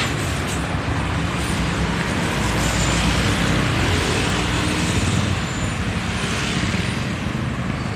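Steady road traffic noise with a heavy bus engine running, a dense rumble without horn tones.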